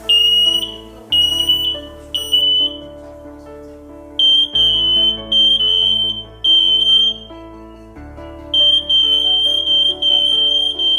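Photoelectric smoke alarm sounding its alarm: loud, high beeps in groups of three, about one a second, with a short pause between groups, repeated three times. Background music plays underneath.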